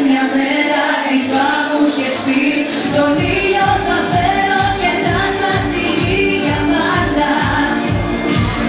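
Loud live pop music with a woman singing the melody. The drums and bass drop out at first, then come back in about three seconds in with a steady, even beat under the voice.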